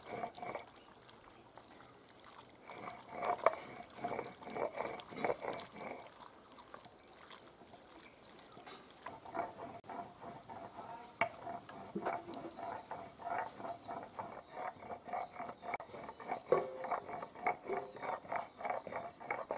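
Hands kneading raw chicken pieces with turmeric in a steel bowl: rhythmic wet squelching strokes, about three a second, with the bowl ringing faintly. The strokes come in two runs with a lull of a few seconds between them.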